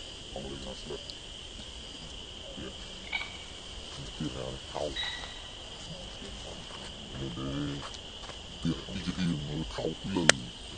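Steady high insect drone, with people talking quietly in the background and a sharp click near the end.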